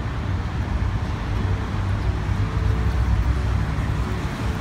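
Steady low outdoor rumble and hiss of background traffic-type noise, with no distinct event.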